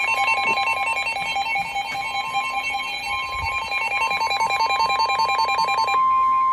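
Emergency alert tones for a tornado warning: a fast-pulsing alert tone over a steady high tone. About six seconds in the pulsing stops and the steady tone holds on alone.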